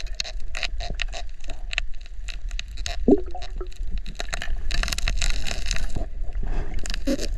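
Underwater sound picked up by a diver's camera while swimming over seagrass: rapid irregular clicks and crackles over a constant low rumble of moving water, with a brief wavering tone about three seconds in.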